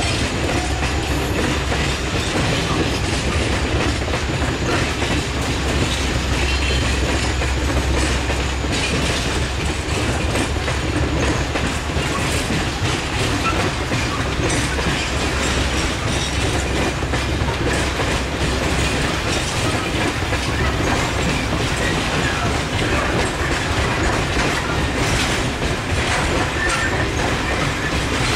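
Freight train of container wagons rolling past: a steady rumble of wheels on rail with clickety-clack over the rail joints.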